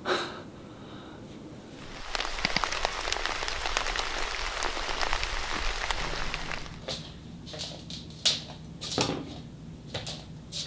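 Heavy rain pattering, a dense patter that starts about two seconds in and cuts off abruptly a few seconds later. After it come scattered soft knocks and rustles over a low hum.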